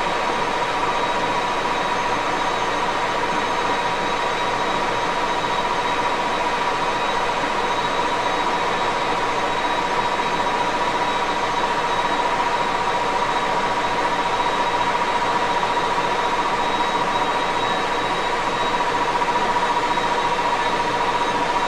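Vintage 1941 Axelson gear-head engine lathe running steadily, a constant high gear whine over an even mechanical rush.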